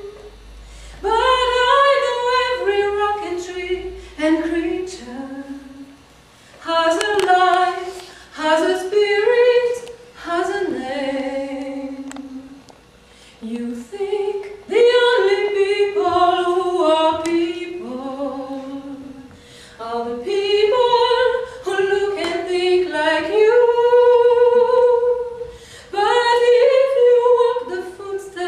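Unaccompanied singing: a melody of held and gliding notes sung in phrases a few seconds long, with short breaks between them.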